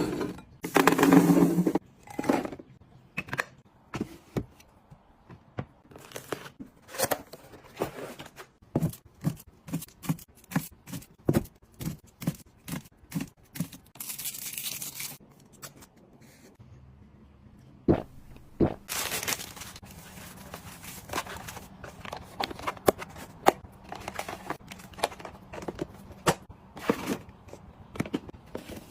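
Items and packaging being handled during restocking: a long run of light clicks, taps and knocks with rustling, scraping and tearing between them, and a short hissy burst about halfway through.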